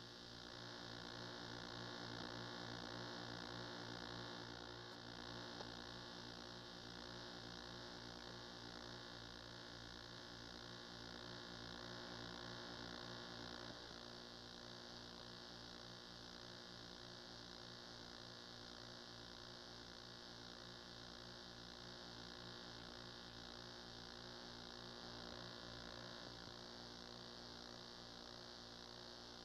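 Faint, steady electrical mains hum with a stack of overtones, over a background hiss, from an old videotape transfer; no sound from the game itself. The hum drops slightly in level about fourteen seconds in.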